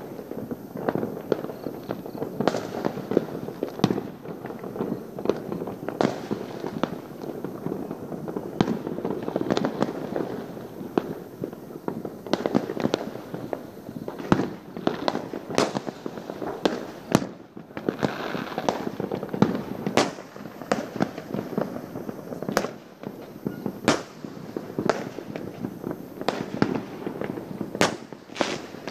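Many fireworks going off at once: a dense, unbroken run of pops and bangs, with louder sharp reports every second or so.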